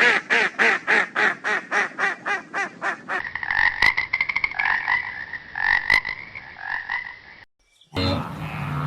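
An animal's short pitched calls repeated rapidly, about four a second, then a different, faster trilling call from about three seconds in. It cuts off shortly before the end, and a new, lower, steadier animal sound begins.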